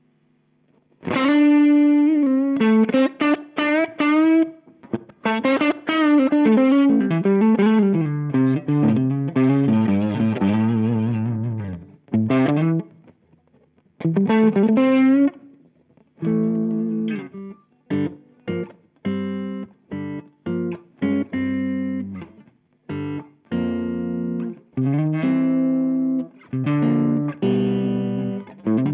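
Electric guitar played through a Chevtone Effects Messiah Drive, a British amp-style overdrive pedal. It comes in about a second in with a lead line full of string bends, then short, chopped chords and riffs with brief gaps between them.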